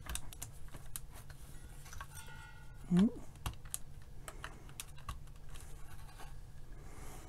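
Scattered light clicks and taps of a multimeter's test leads and probes being handled and plugged in, with one brief rising tone about three seconds in.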